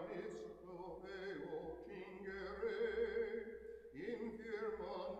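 A voice singing slow, long-held notes with vibrato.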